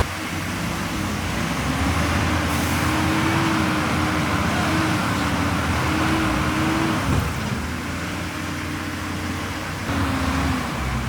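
Heavy earthmoving machine running, with a steady whine over the engine that rises about two seconds in and falls away about seven seconds in, then returns briefly near the end.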